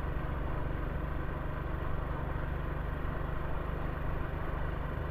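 Motorcycle engine running at a steady pace while riding, with a steady rush of road and wind noise.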